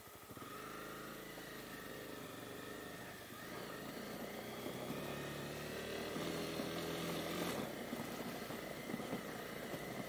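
Honda CB250R's single-cylinder engine pulling under load, its revs climbing over several seconds. The pitch steps down about seven and a half seconds in as it shifts up a gear, a clutchless upshift.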